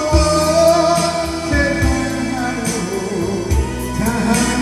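A man singing a slow Korean trot ballad, with held, wavering notes over electronic keyboard accompaniment and a steady beat.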